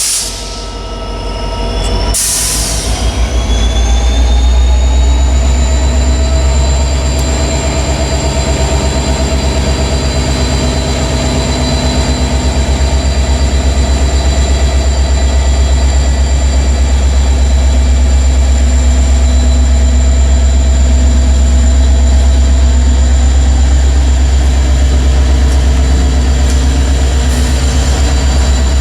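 Freight train rolling past. A heavy low rumble runs under a steady high-pitched wheel squeal, which rises slightly a few seconds in and then holds.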